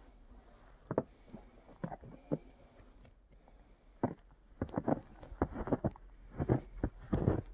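Footsteps crunching through fresh, deep snow: a few scattered crunches at first, then a steadier run of steps from about halfway through.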